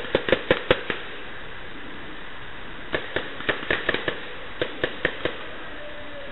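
Paintball markers firing in quick volleys of sharp pops, about five a second: a burst at the start, another about three seconds in, and a last short one around five seconds in.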